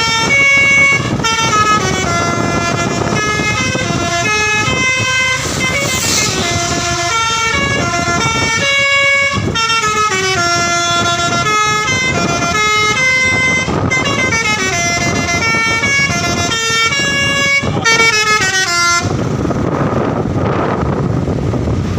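Telolet basuri bus horn playing a fast multi-note melody, one held note stepping to the next. The tune stops about three seconds before the end, leaving a noisy rumble.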